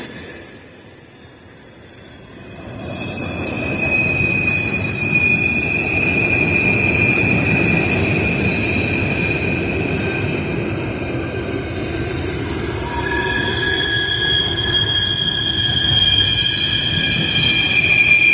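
Freight train cars rolling past, steel wheels squealing on the rails: several long high squeals that change pitch now and then, over a steady low rumble of the wheels.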